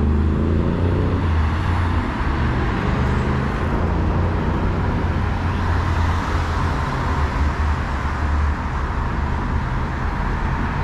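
City bus engine and road noise heard from inside the bus while riding: a steady low rumble with road and tyre noise over it.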